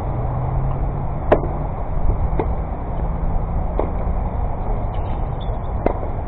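Tennis ball struck by rackets and bouncing on a hard court during a rally: four sharp pocks over about five seconds, the loudest just over a second in. A steady low rumble runs underneath.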